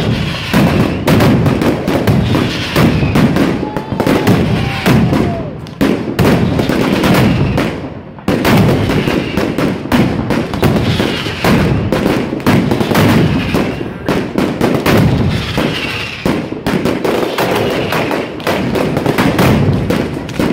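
A traca, a chain of firecrackers, going off in a rapid, near-continuous string of bangs, with a brief lull about eight seconds in.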